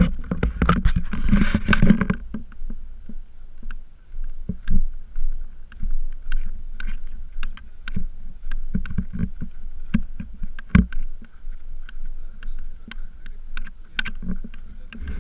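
Irregular knocks and rubbing from a camera on a selfie stick carried by someone walking, with a louder rush of noise in the first two seconds.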